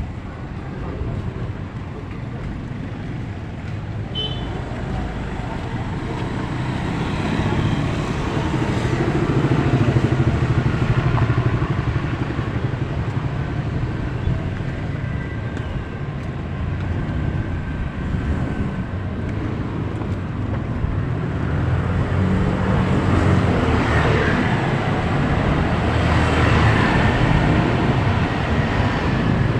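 Street traffic: motorcycle and small van engines passing close by, the rumble swelling about a third of the way in and again near the end.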